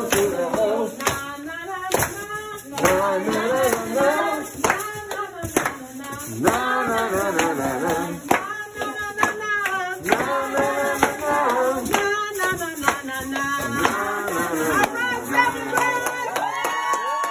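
A group of voices singing with music, with hand claps keeping a steady beat of about two claps a second.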